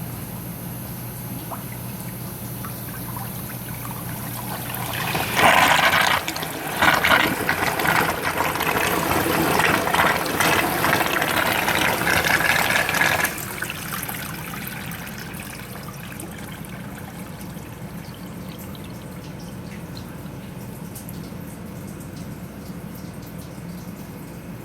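Sump pump and its pit: a low steady hum, then water gushing loudly for about eight seconds from about five seconds in, easing to a softer steady rush of running water.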